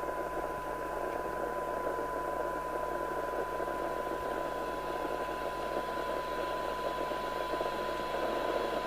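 Rotel RVC240 FM CB radio receiver's speaker with the squelch open, playing the signal generator's steady test tone under a constant hiss.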